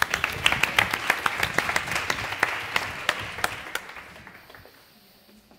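Audience applauding: many hands clapping, strongest in the first three seconds, then thinning and fading out by about five seconds in.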